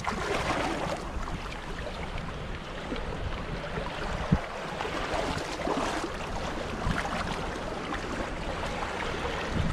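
Shallow seawater sloshing and lapping around a hand net moved through the water, over a steady low rush of wind on the microphone, with a couple of faint knocks.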